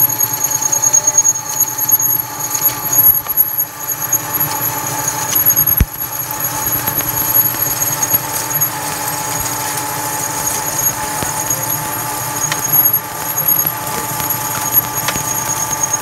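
Metal lathe cutting a large steel disc: steady machine running with a constant high whine from the cut, and one short knock about six seconds in.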